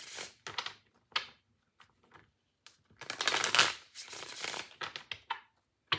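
Tarot deck being shuffled by hand: a brisk rush of cards just after three seconds in, with short card snaps and taps before and after it.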